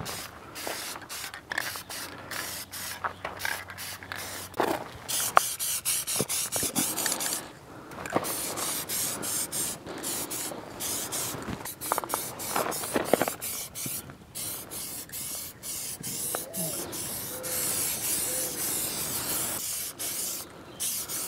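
Aerosol spray-paint can spraying in repeated on-and-off bursts of hiss, some short and some held for a few seconds, as the parts are given a coat of paint.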